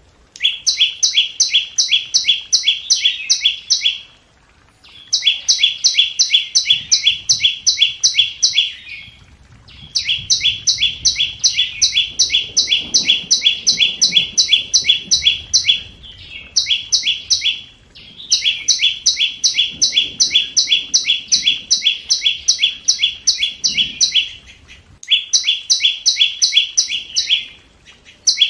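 Scarlet-backed flowerpecker calling: runs of sharp, high ticking notes at about four a second, each run lasting a few seconds, with short pauses between runs. It is a lure call of the kind used to draw wild birds to a trap.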